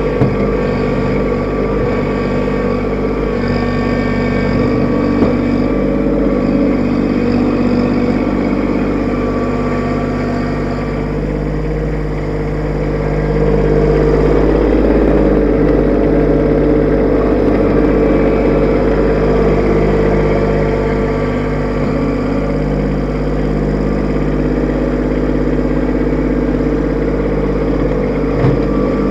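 Kubota B2601 compact tractor's three-cylinder diesel engine running steadily while the front loader digs out soil. It gets louder about halfway through, as the loader lifts a full bucket of earth.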